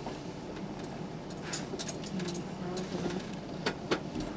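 Vehicle driving slowly, heard from inside the cabin: a steady low engine and road rumble with scattered light clicks and rattles.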